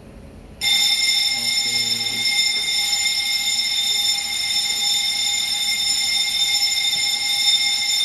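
Building fire alarm sounding continuously, set off by a smoke detector under test with a detector tester pole. It starts about half a second in and holds a steady, loud, high-pitched ringing tone.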